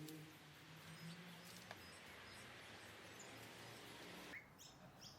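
Near silence: faint outdoor background hiss with a low hum, then a few short bird chirps that drop in pitch near the end.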